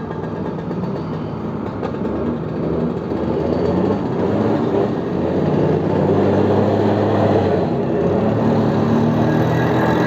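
Old two-stroke Vespa scooter's engine running at steady speed while riding, with wind and road noise over the microphone; it gets louder about three or four seconds in.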